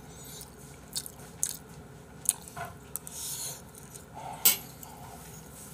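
Chewing a mouthful of kimchi fried rice, with a few sharp clinks of a metal spoon against a stainless steel bowl; the loudest clink comes about four and a half seconds in.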